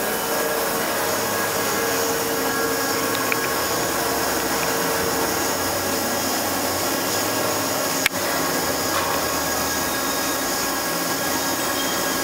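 Large Kinwa CL78 CNC lathe running, a steady mechanical noise with a few even whine tones over it. One sharp click about eight seconds in.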